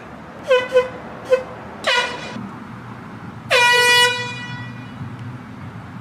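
Air horn blasting: four short toots in the first two seconds, then a longer blast about three and a half seconds in that dips slightly in pitch as it starts.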